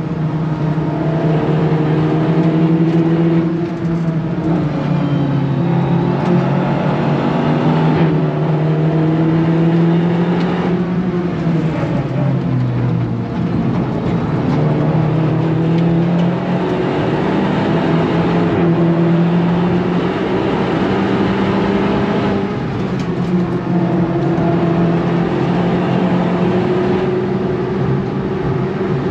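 Seat Leon Cupra 300's turbocharged 2.0-litre four-cylinder pulling hard from inside the cabin at track speed. The engine note climbs and then drops back sharply several times as it runs through the gears, over steady tyre and wind noise.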